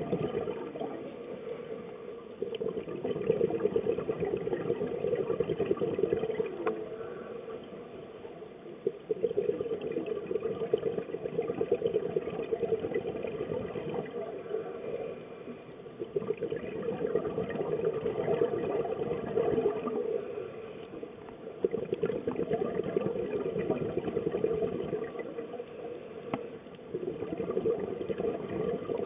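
Exhaled air bubbling out of a diver's scuba regulator underwater: a bubbling rush that swells and fades every few seconds, one burst per breath.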